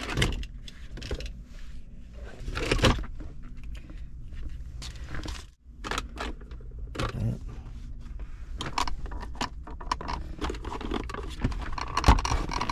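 Hand-handling noises: irregular clicks, scrapes and rattles of small parts and a replacement bulb being handled, over a low steady hum.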